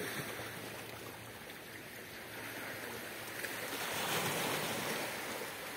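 Small sea waves washing against a rocky shore, swelling louder as a wave comes in about four seconds in.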